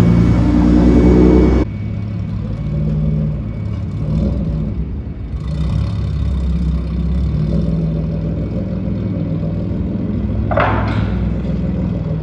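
Mercedes-Benz 190E with a straight-piped exhaust, catalytic converter and rear muffler removed, driving off at low speed. A loud, deep exhaust drone drops sharply about one and a half seconds in as the car pulls away, then runs on steadily and quieter. A brief rushing noise comes near the end.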